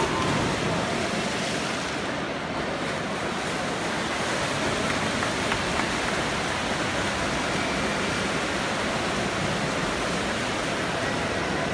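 Steady wash of noise in an indoor pool hall during a butterfly race: swimmers splashing down the lanes, with the noise of the spectators echoing around the hall.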